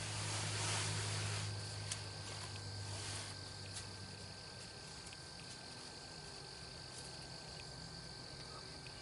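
Insects singing in a steady, high-pitched chorus, with a brief rise of rushing noise in the first second or so and a few faint clicks.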